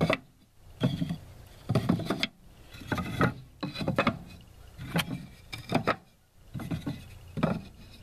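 Wooden top bars of a top-bar beehive being moved and set back in place, knocking and rubbing against each other and the hive body. Sharp wooden clacks come about once a second.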